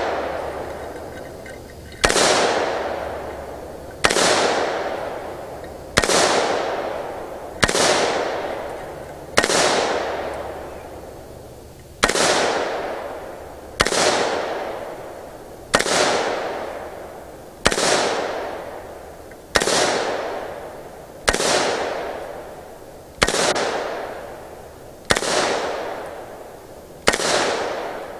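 Compact Heckler & Koch MP5K-type gun fired in slow single shots, one about every two seconds, about fourteen in all. Each report is followed by a long fading echo.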